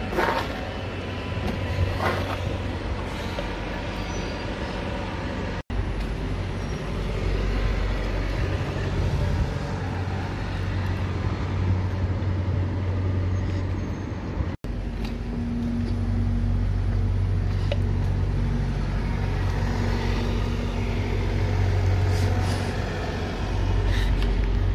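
Diesel bus engines running, a steady low drone, with a short hiss of air from a bus's air brakes just after the start.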